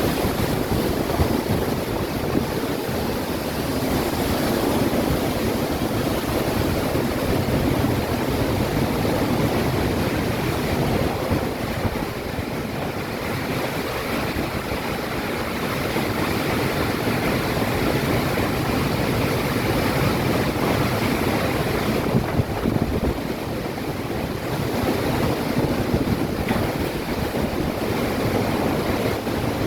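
Windstorm with heavy rain: a steady rushing noise that swells and eases, with gusts buffeting the microphone.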